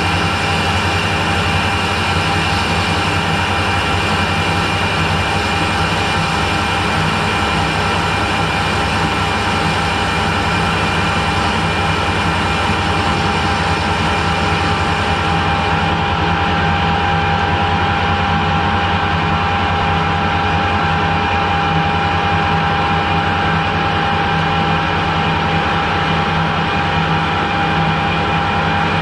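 Harrison metalworking lathe running steadily under power, its spindle and gearbox giving a constant hum with several held tones. A high hiss fades about halfway through while the hum runs on unchanged.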